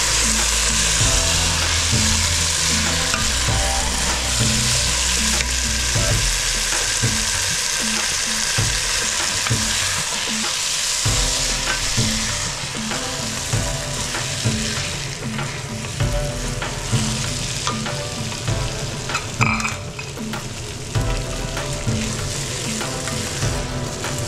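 Raw jeeraga samba rice being sautéed in oily masala in a pot, stirred with a wooden spatula: a steady sizzle, with the spatula scraping and turning through the grains in repeated strokes.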